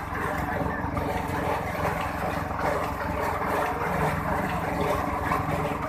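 Ghota almond-grinding machine running: a steady motor hum with a rough, even noise over it and no let-up.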